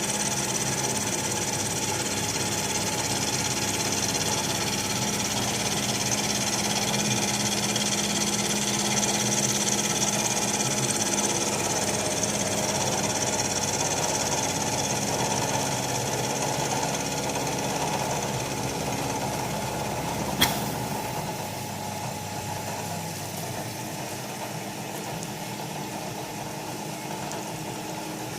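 Bridgeport Series 2 Interact 4 CNC milling machine running, a steady mechanical hum with several held whining tones. A single sharp click comes about two-thirds of the way through, after which the machine sound is slightly quieter.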